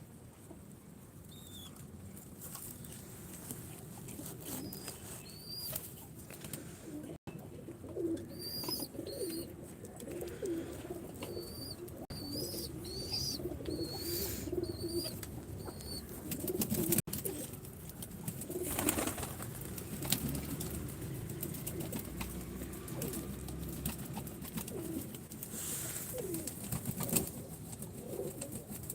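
Pigeons cooing in low warbling runs, with bursts of wing flapping and a series of short, high chirps from a smaller bird.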